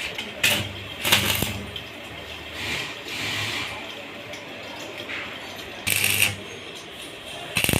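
Irregular metallic clinks and scrapes of hand tools working on metal, in short bursts with a few sharp knocks.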